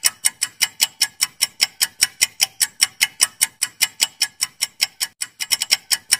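Ticking-clock sound effect of a quiz countdown timer: a fast, even run of sharp ticks.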